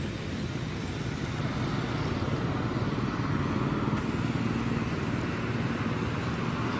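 A motor vehicle engine running steadily, a low rumble that grows slightly louder after about two seconds.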